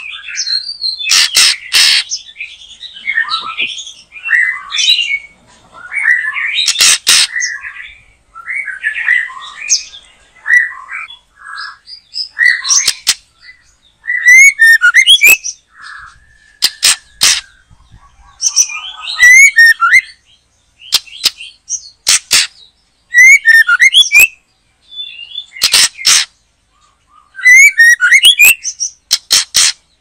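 White-rumped shama singing in full voice: varied whistled and warbling phrases, broken every few seconds by loud, sharp harsh notes.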